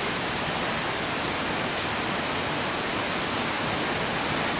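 Steady rushing of a large waterfall, an unbroken even roar of falling water with no change in level.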